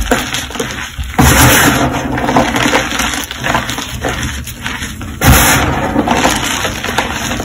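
Hands squeezing and crumbling reformed gym chalk blocks in loose chalk powder: a steady dry crunching and crumbling, with louder crushing strokes about a second in and again about five seconds in.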